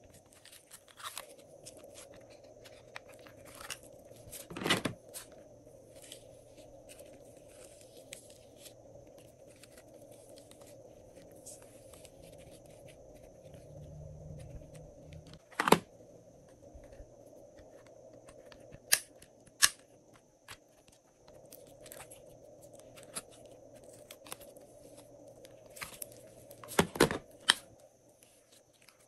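Glossy slime being kneaded and stretched by hand: scattered sticky clicks and crackles, with a few louder pops from air bubbles squeezed out.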